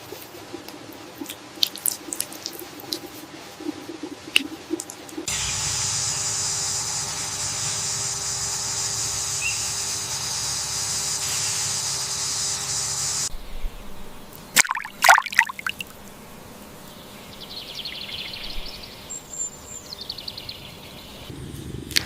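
Water sounds: scattered drips and small splashes, then a steady pouring rush that starts and stops abruptly, and a few sharp splashing knocks about fifteen seconds in.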